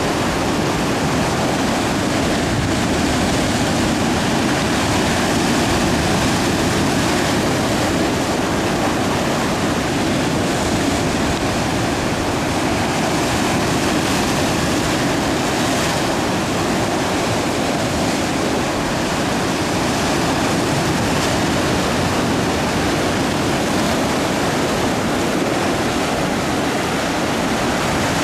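Sea surf breaking over a rocky shore: a continuous rushing roar that holds at one level, with no single wave crash standing out.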